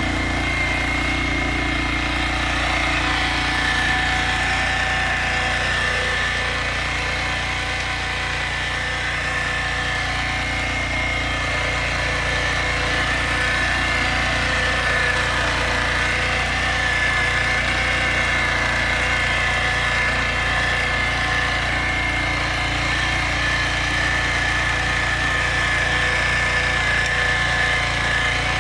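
Lombardini engine of a Yağmur YET 320 digging machine running steadily at a constant speed while it digs deep.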